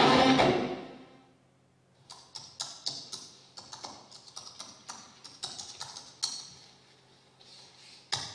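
Guitar-led music fades out, then after a short near-silence comes a run of irregular light clicks and taps, several a second, before loud music comes back in near the end.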